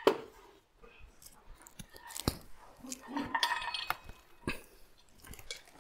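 Household things clinking and knocking in woven bags as the bags are set down and unpacked. There is a sharp knock just after the start and others a little past two seconds and about four and a half seconds in, with rustling and small clinks around three to four seconds.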